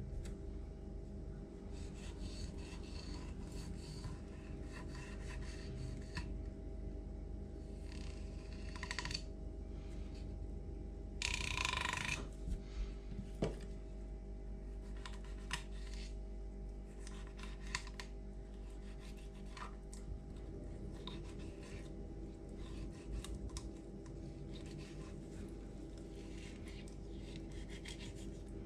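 Knife scraping and cutting through trout flesh along the ribs and spine on a wooden cutting board: scattered rasping strokes, with one louder, longer scrape about eleven seconds in. A steady low hum runs underneath.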